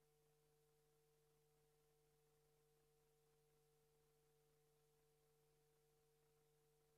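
Near silence: the recording's faint steady hum and hiss during a pause.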